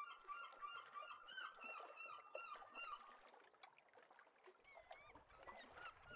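Faint honking calls of a flock of geese, several a second, dense for the first three seconds and then thinning out.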